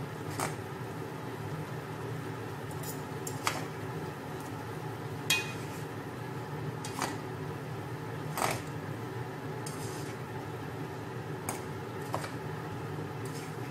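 Cooking utensils clinking and scraping against a large pot while noodles are tossed and stirred, with several sharp clinks scattered irregularly, over a steady low hum.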